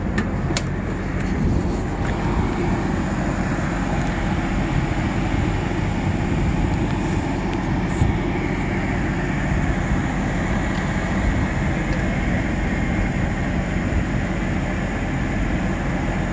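The coach's onboard generator running steadily, a low even hum. A sharp click sounds about half a second in and another about eight seconds in.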